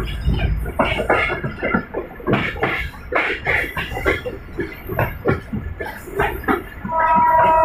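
Irregular clattering and knocking of a moving passenger train's coach and wheels, heard at an open coach door. Near the end a loud, steady two-note tone sets in.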